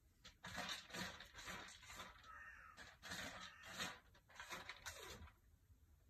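Crows cawing several times in a row over about five seconds.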